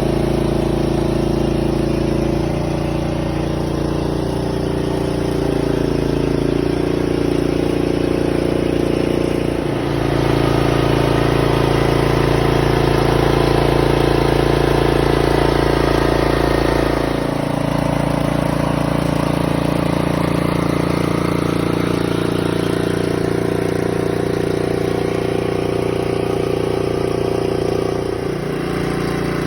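Engine-driven hydraulic pump running steadily while it jacks a push pier into the ground, its note stepping up and down several times as the load changes.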